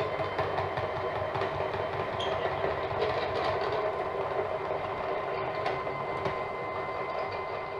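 NEMA 23 stepper motors driving a homemade CNC mill's table along its lead screw, running steadily: a whine of several steady tones over a rattling rumble.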